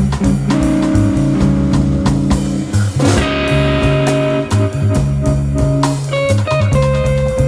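A jazz-rock fusion trio playing live: guitar lines over a walking electric bass and drum kit. A cymbal washes about three seconds in.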